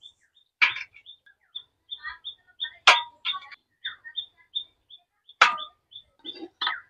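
A metal spatula clinks sharply several times against the frying pan and a steel plate as fried fritters are lifted out, loudest about three and five and a half seconds in. Behind it a small bird chirps over and over, about three short chirps a second.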